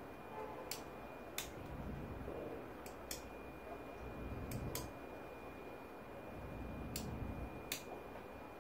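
Sharp clicks at irregular intervals, some in quick pairs, from the push-button control of LED warning light bars being pressed to step through flash patterns. A faint steady high whine runs underneath.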